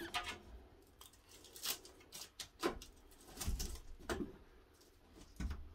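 Pry bar levering a chipboard wall panel off the wood studs: several short creaks and squeaks as the nails pull out of the wood, with a couple of dull knocks.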